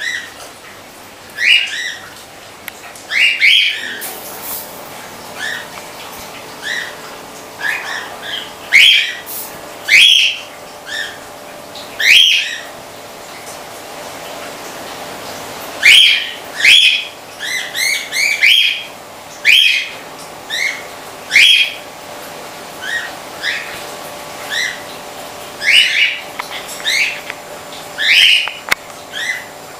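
Birds chirping loudly in short, sharp calls, roughly one a second, over the steady hum of water pumps.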